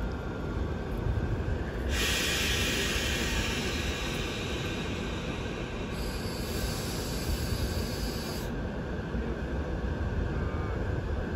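A standing EP2K electric locomotive and its passenger train, with a steady low rumble of running equipment. From about two seconds in, a loud hiss of compressed air venting starts, thickens partway through and stops suddenly a few seconds before the end.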